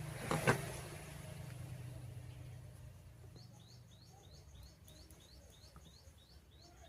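Two sharp clicks about half a second in over a steady low hum, then a small bird chirping repeatedly from about three seconds in, roughly three short rising chirps a second.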